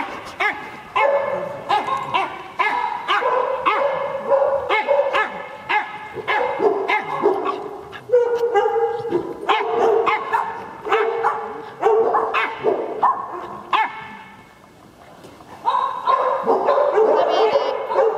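Small dogs barking and yipping over and over while playing, with a short lull about three-quarters of the way through.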